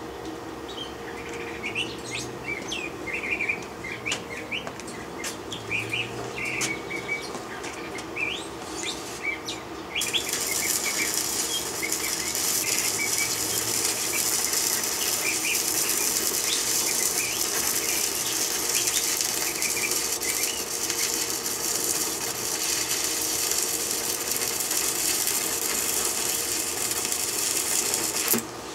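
Stick (arc) welder's arc crackling and sizzling steadily while laying a weld on steel, starting abruptly about ten seconds in and cutting off just before the end. Before the arc strikes, birds chirp.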